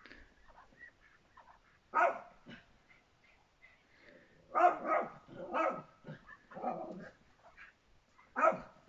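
Small dogs barking in short, irregular barks. There is one loud bark about two seconds in, a run of barks a little after the middle, and another near the end.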